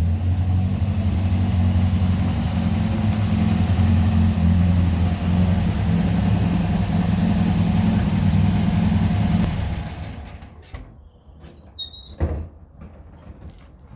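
An engine running steadily at a constant speed, which stops about ten seconds in; afterwards a few light clicks and one sharp knock.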